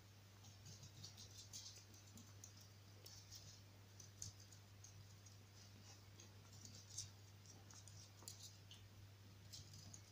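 Faint, irregular light clicks and taps: a small puppy's claws on a laminate floor as it plays with a balloon, over a steady low hum.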